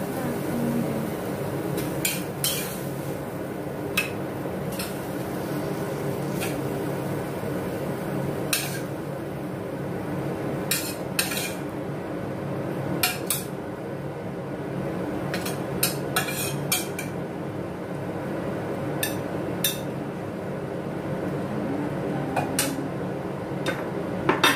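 Metal spatula clanking and scraping against a steel wok as stir-fried beef and onion are tossed and scooped out, sharp irregular strikes a dozen or so times over a steady background noise.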